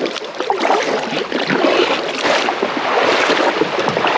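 Creek water splashing and rushing around a kayak as it is paddled, a continuous loud wash of water noise.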